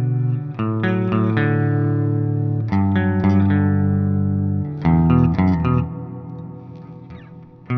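Gibson Les Paul Special SL electric guitar playing a run of strummed chords, the last one left to ring and fade away near the end.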